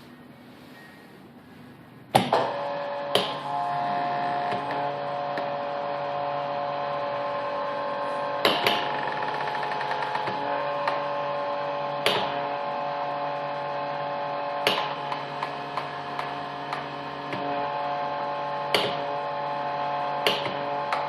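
Vacuum leak tester running a vacuum decay test: its vacuum pump starts with a click about two seconds in and runs with a steady hum. Sharp clicks come every few seconds.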